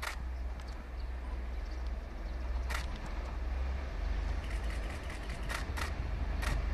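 Low, steady rumble of an approaching freight train hauled by two Taiwan Railways R100-class diesel-electric locomotives, getting slightly louder towards the end. Several short sharp clicks cut through it, one near the start, one in the middle and three close together near the end.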